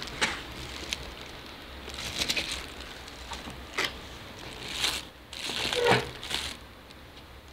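Clear plastic wrapping crinkling and rustling against moulded pulp packaging as hands work inside a cardboard box, in several irregular bursts, the loudest about six seconds in.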